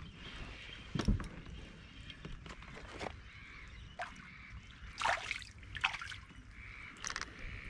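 Small hooked tailor splashing at the water surface as it is reeled in on a spinning rod, with short splashes past the middle. A single knock about a second in.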